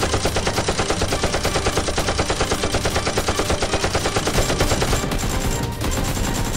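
Automatic gunfire sound effect: rapid shots in a fast, even rhythm, laid over a Nerf blaster firing. About four seconds in the rhythm breaks up into more scattered shots.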